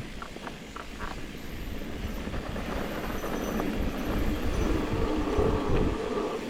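Mountain bike rolling along a dirt trail: a steady rumble and rattle that grows louder in the second half, with a few sharp clicks in the first second.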